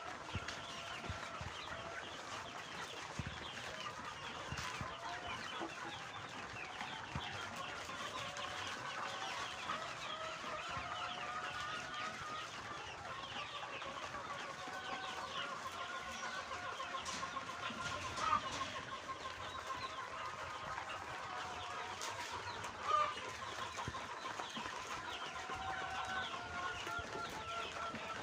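A large flock of chickens calling all at once, a dense continuous chatter of overlapping clucks and calls, with a couple of louder single calls standing out in the second half.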